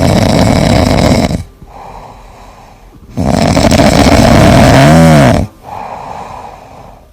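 Domestic cat snoring loudly: one long snore, then quieter breathing, then a second long snore about three seconds in that ends with a brief whistle rising and falling in pitch, followed by quieter breathing again.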